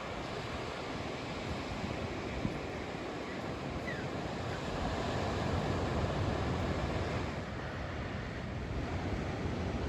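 Ocean surf washing steadily, with wind buffeting the microphone; the wash swells a little in the middle.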